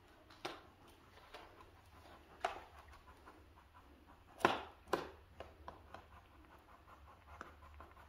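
A German Shepherd dog sniffing at a rug and the floor in short snuffs, with scattered light taps and a couple of sharper knocks about four and a half and five seconds in.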